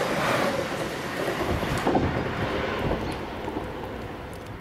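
South Western Railway Siemens Desiro electric multiple unit passing at speed, its wheel rumble fading away as the tail end goes by, with a single knock about two seconds in.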